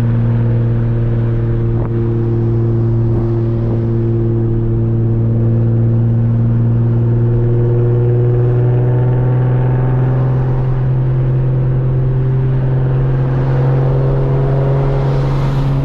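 Nissan Z's V6 engine and exhaust running steadily while driving, heard from inside the cabin with the windows open; the engine note rises slightly near the end.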